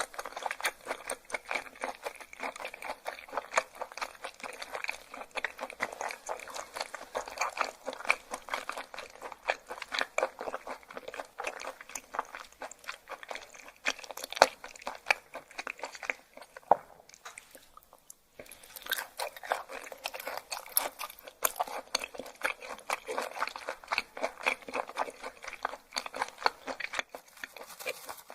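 Close-miked chewing of raw yellowtail sashimi: a fast, dense run of crisp crunching mouth sounds, pausing briefly about two-thirds of the way through.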